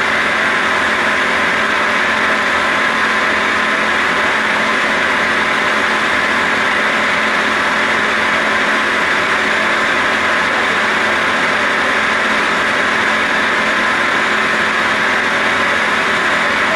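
CNC roll turning lathe running under a continuous cut, its turning tool taking a chip off a metal roll: a steady, unchanging machine noise with a faint constant hum.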